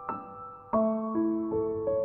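Gentle background piano music: single notes struck about every half second or less and left to ring into one another.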